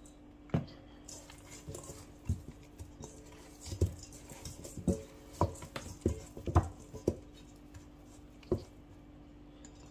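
Hands working spice rub into raw chicken drumsticks in a stainless steel bowl: a string of irregular short slaps and knocks as the meat is turned and pressed against the bowl, over a faint steady hum.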